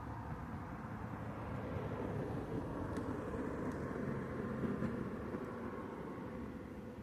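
A low, steady rumble that builds over a couple of seconds, holds, and eases off near the end, with a couple of faint ticks.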